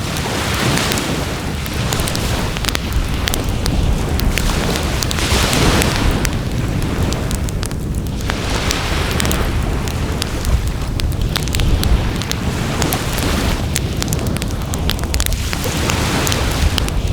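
Wood fire burning in a fire pan and crackling with frequent small pops. Underneath is a low rumble and a rushing sound that swells and fades every few seconds.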